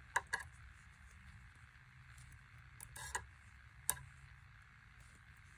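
Knitting needles clicking against each other as stitches are worked: two sharp clicks just after the start, a short rattle about three seconds in, and one more click shortly after, over a faint low hum.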